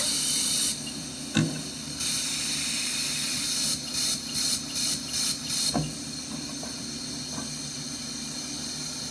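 Compressed air hissing through a gas-driven emergency ventilator, cutting off and coming back on, then fluttering in five or six quick puffs before dropping away to a low hum.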